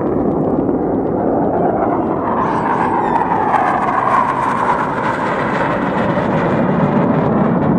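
Military jet flying past low: a steady jet roar, with a whine that falls in pitch as it passes, around the middle.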